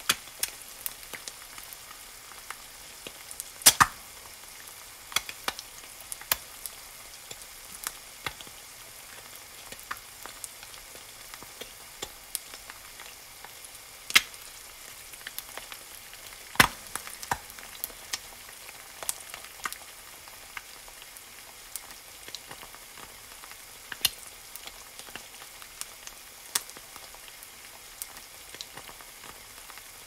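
An egg frying in a pan: a steady sizzle with sharp pops and crackles at irregular intervals, a few of them much louder.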